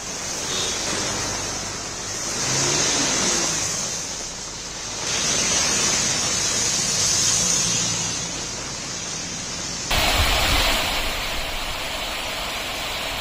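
Floodwater rushing in an overflowing stream: a loud, steady roar of water that swells and eases. About ten seconds in it cuts abruptly to a louder, deeper rush.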